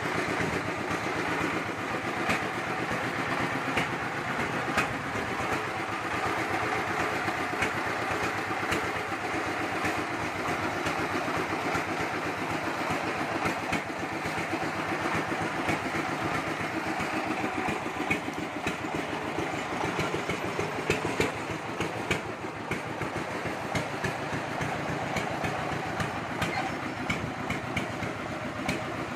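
Horizontal single-cylinder diesel engine of a công nông farm vehicle running steadily as it is driven slowly, with scattered sharp knocks and rattles.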